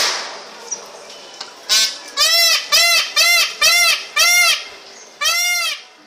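Indian peafowl calling: a quick series of seven short, loud calls, each rising then falling in pitch, the last one longer and after a brief pause. A sharp click sounds at the very start.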